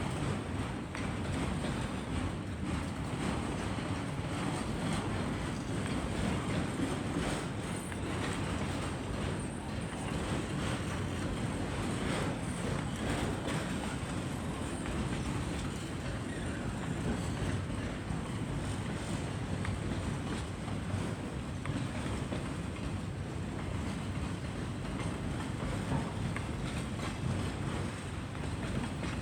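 A CN train's cars rolling past on the rails: a steady low rumble and rattle with a few sharper clacks.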